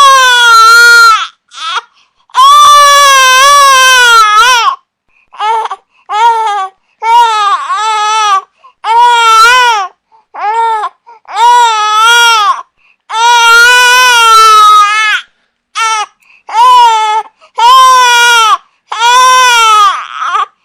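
A baby crying: a string of about fourteen loud wails, short and long, each rising and falling in pitch, broken by brief silent gaps for breath.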